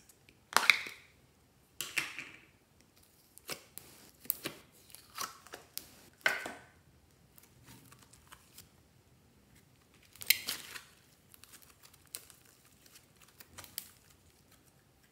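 Gloop noise putty being taken from its plastic tub and squeezed and stretched between the fingers: a string of short, separate squelching sounds, several with a brief squeaky tone. The loudest come near the start and about ten seconds in.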